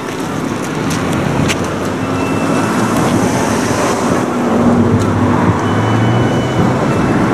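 Road traffic passing: a steady rushing noise with a low engine hum, growing slightly louder.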